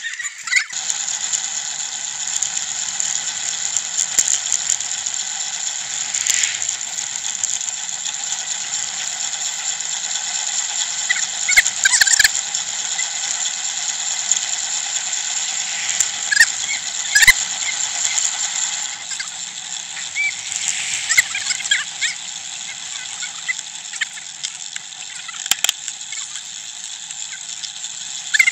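Bicycle being ridden, its drivetrain giving a steady ratchet-like ticking whir, with a few sharp clicks and rattles now and then.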